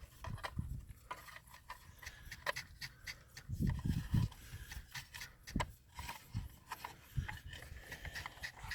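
Handling noises: scattered clicks, taps and rubbing as the water heater's igniter control board and its wires are worked back into the housing, with a few low thumps near the middle.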